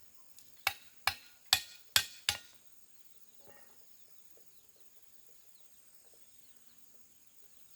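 Five sharp strikes of a hand tool in quick succession, about two a second, followed by faint bird chirps.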